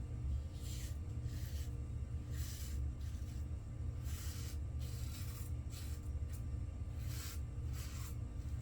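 Vintage Schick Eversharp razor scraping through lather and stubble in a series of short strokes, roughly one every half-second to second, with some strokes a little longer than others.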